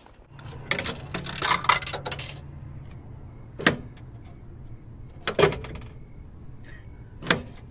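Rattling and rustling of a handheld camera being handled and covered by clothing, then three sharp metallic clinks a little under two seconds apart, with faint short high beeps repeating behind them.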